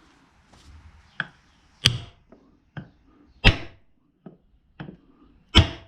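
Blows with a piece of wood against a motorcycle engine crankcase, trying to knock the case halves apart: three hard whacks roughly every second and a half, the last the loudest, with lighter knocks between them. The case is stuck and not separating.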